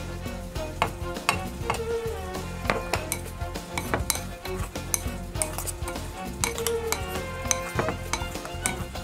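Metal spoon stirring small smelt through seasoned flour in a bowl, with quick irregular clinks and scrapes of the spoon against the bowl.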